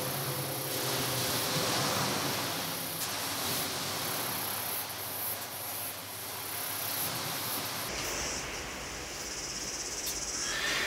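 Paintbrush dragged back and forth across a canvas, a continuous rough hissing of bristles on the surface that swells and eases with the strokes.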